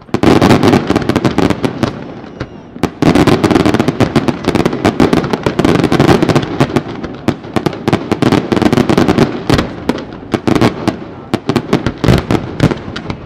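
Fireworks display firing a dense barrage of aerial shells and mines: rapid, overlapping bangs and crackle with hardly a gap. There is a brief easing about two seconds in, then the volley picks up again.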